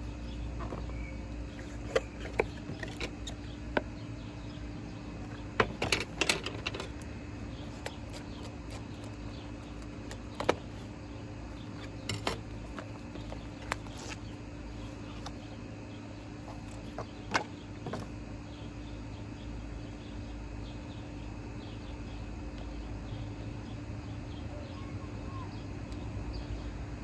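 Scattered clicks and taps of a package and its contents being handled and opened by hand, with a cluster of them about six seconds in, over a steady low hum.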